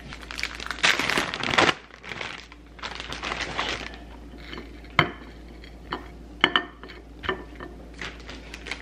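A plastic snack packet of falafel bites crinkling and rustling as it is handled, for the first few seconds. It is followed by a few light, sharp taps and clicks of food and fingers on a ceramic plate.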